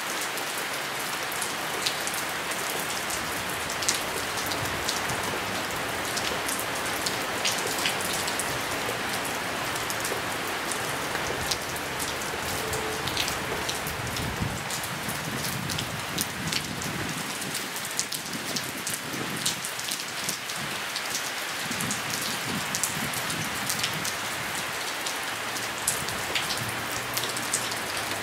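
Steady rain falling, an even hiss with frequent sharp ticks of single drops landing close by.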